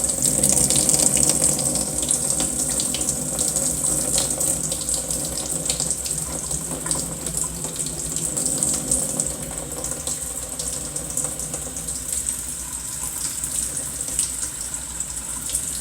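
Hot water running from a kitchen tap and spitting as it splashes over a container held under the stream, to loosen the frozen treat inside.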